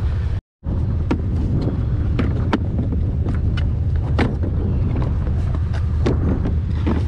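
Steady low engine rumble of a vehicle running, with a string of sharp clicks and knocks as a plastic drill case is handled. The audio cuts out for a moment about half a second in.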